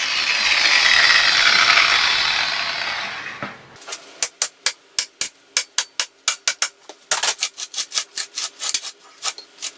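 Angle grinder with a cut-off wheel, cutting through the cage of a roller bearing on a steel shaft, then winding down and fading out over about three seconds. From about four seconds in comes a string of sharp metallic clicks, several a second, as the cut bearing's rollers and cage are worked loose by hand.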